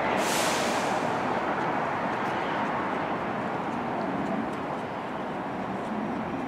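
Steady running hum and whir of an R62A subway train standing with its doors open, with a short hiss in the first second.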